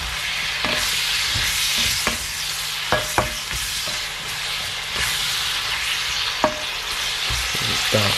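Strips of beef and sliced peppers sizzling in a non-stick wok as they are stir-fried, the slotted spatula scraping and knocking against the pan. A few sharp taps of the spatula stand out, about three seconds in and again past six seconds.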